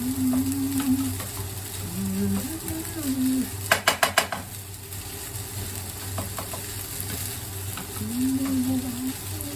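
Fried rice being stirred and tossed in a frying pan with a spatula, the pan sizzling softly. About four seconds in there is a quick run of five or six sharp taps on the pan.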